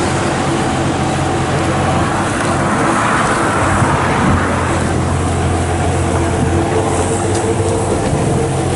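Road traffic beside the path: a steady low engine hum, with a vehicle passing about three to four seconds in.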